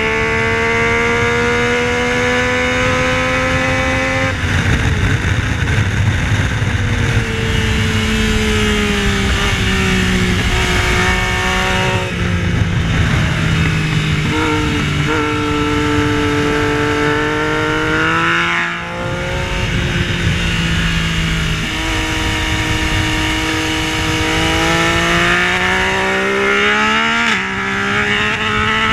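Yamaha Tracer 900's 847 cc inline three-cylinder engine heard onboard at racetrack speed. Revs climb, drop suddenly at shifts and under braking, then rise again, with a dip at about 19 s, over a heavy rush of wind.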